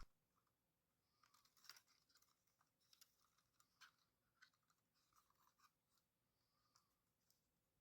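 Faint, scattered small clicks and scratches of a small plastic drone being handled, its arms moved on their hinges; otherwise near silence.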